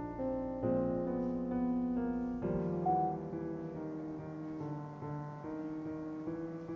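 Gentle background piano music: slow, held chords that change about two and a half seconds in.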